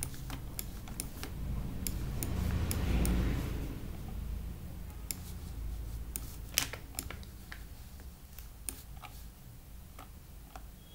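Scattered, irregular computer mouse clicks as the view is panned and zoomed. A low rushing swell of noise builds and fades about two to four seconds in and is the loudest sound.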